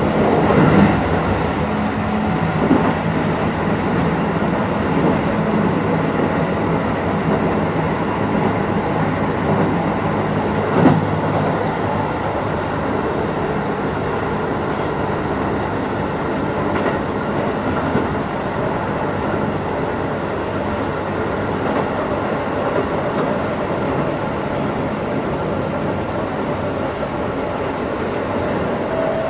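Keisei 3050-series electric commuter train running, heard from inside the passenger car: a continuous rumble of wheels on rail with a few short knocks from rail joints. A steady low motor hum fades out a few seconds in.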